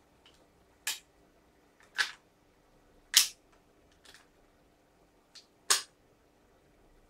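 Sharp mechanical clicks and snaps from parts of a WE M4 gas blowback airsoft rifle being handled and fitted, about seven over several seconds, four of them loud and at irregular spacing.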